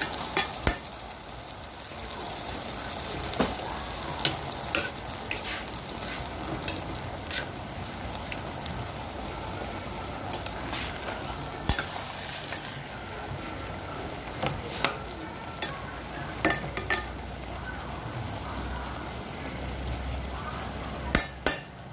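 Sliced okra frying in a pan with a steady sizzle, while a spoon stirs it, clicking and scraping against the pan at irregular moments.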